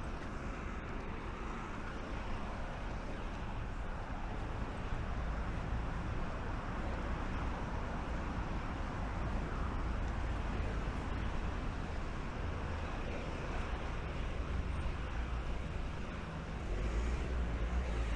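City street traffic: a steady rumble of cars and buses passing, growing louder near the end.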